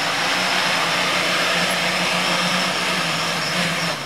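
Fixed-pitch 3D quadcopter's four electric motors and propellers whirring steadily as it flies low over the grass. The hum wavers slightly in pitch.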